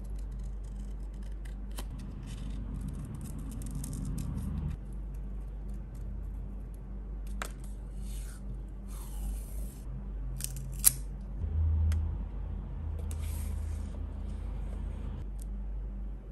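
Scissors cutting a paper sticker with a rasping snip, then washi tape being pulled off its roll and torn in short rasping pulls, with a few sharp clicks in between.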